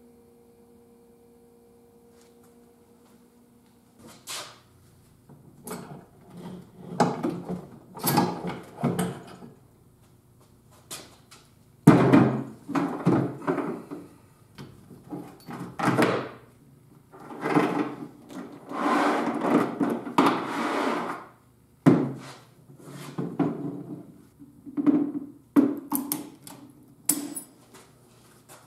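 Metal internals of an NP231 transfer case being pulled apart and set down on a workbench: the drive chain, sprockets and shafts clunk, clink and rattle in uneven spells. The clatter starts about four seconds in, after a faint steady hum.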